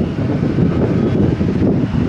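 Gusting wind buffeting the microphone in a heavy, flickering rumble, over the steady noise of an airliner's jet engines.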